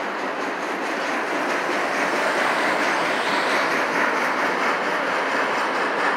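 Enclosed autorack freight cars rolling past at a grade crossing: a steady rush of steel wheels on rail that grows a little louder about two seconds in.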